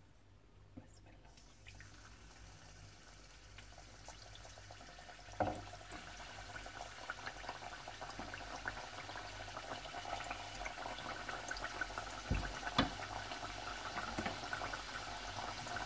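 Meethi tikkiya (sweet flour, sugar and milk dough patties) frying in oil in a karahi on a low flame. The oil fizzes and crackles, starting about two seconds in and growing louder. There are a few knocks, one near the middle and two close together about twelve seconds in.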